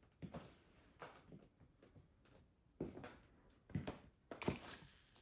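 Footsteps of Buffalo T24400 platform boots on a tile floor: a few separate heel strikes, weak at first and heavier with a dull thud in the second half.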